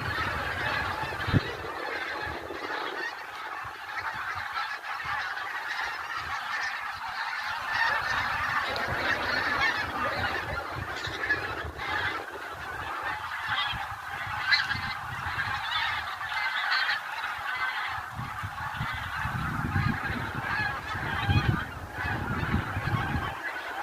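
A flock of migrating wild geese honking in flight, many calls overlapping into a continuous clamour.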